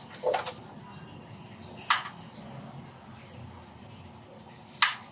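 Knife knocking on a wooden chopping board while cutting: three separate sharp knocks, one just after the start, one about two seconds in and the loudest near the end.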